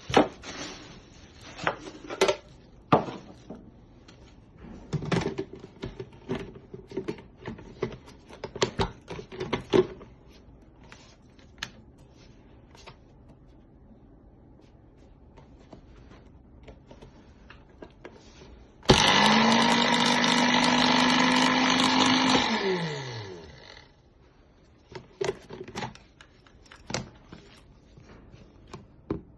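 Philips HR2223 blender motor starting abruptly, running at a steady high pitch for about three and a half seconds, then spinning down with a falling pitch once switched off. It is preceded by a series of clicks and knocks, with a few more near the end.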